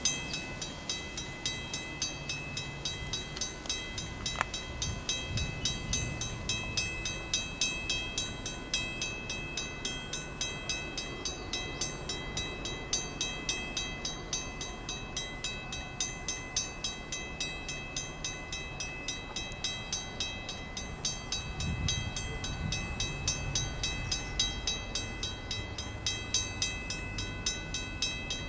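Safetran mechanical railway warning bell ringing continuously, its hammer striking the gong in a fast, even rhythm. The bell rings when a standard gauge train is passing on nearby tracks, to warn track workers. A low rumble comes and goes underneath.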